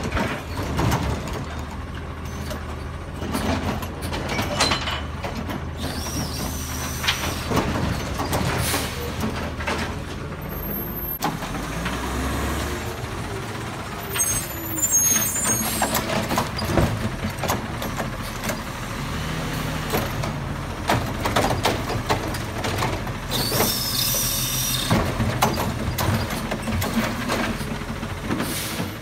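Republic Services recycling truck's diesel engine running and revving as it works its stops, with repeated knocks and clanks and short hisses of air from the brakes.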